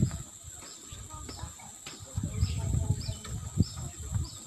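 A bird chirping over and over, short downward-sliding chirps about twice a second, over low thumps and rumble.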